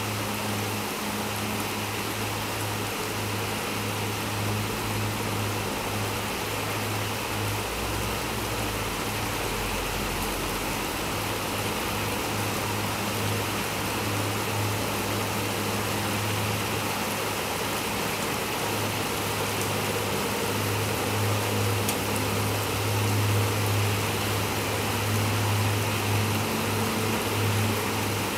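Steady rain sound, an even hiss with no breaks, with a low hum underneath that grows louder in the second half.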